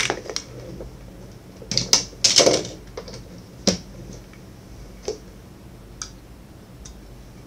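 Scattered clicks and rustles of small plastic parts and packaging being handled on a desk, with a louder crinkling cluster about two seconds in and a sharp click a little later.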